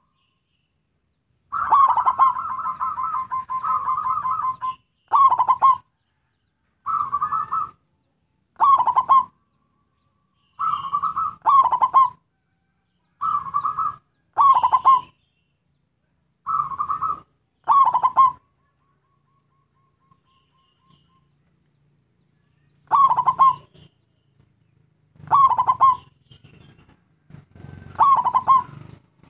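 Zebra dove (perkutut) cooing its song in a series of about ten separate phrases, with a longer rolling, trilled phrase about two seconds in and a pause of a few seconds past the middle.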